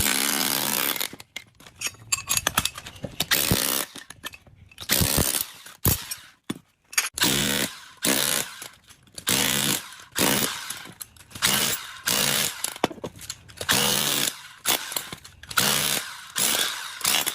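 A power tool run in repeated short bursts, about a dozen of them, each under a second long with a pitched motor sound, starting and stopping roughly once a second.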